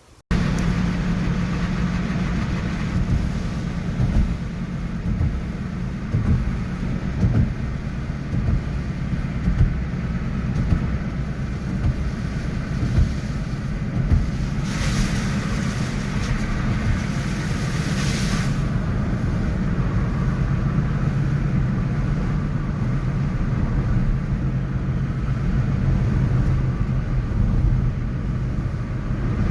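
City traffic: a steady rumble of passing motor vehicles that cuts in suddenly at the start. Near the middle, a hiss rises over it for about three and a half seconds, then drops away.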